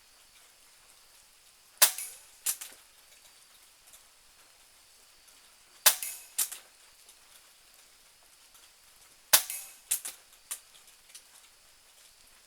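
.22 Benjamin Marauder pre-charged pneumatic air pistol firing three pellet shots about four seconds apart. Each sharp crack is followed by one or two softer clicks about half a second later.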